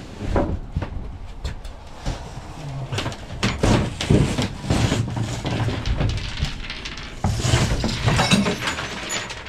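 Irregular knocks, clunks and scraping as a large wooden floor panel is lifted and shifted on the bare metal floor of an empty cargo van, with a louder stretch of handling near the end.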